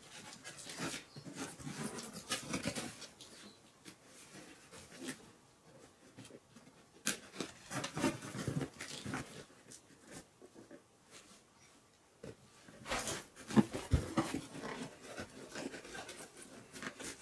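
Scissors cutting packing tape on a cardboard box and the flaps being pulled open: scattered scratching, rustling and sharp clicks in a few clusters, with a dull thump a little before the end. A dog is breathing and sniffing close by.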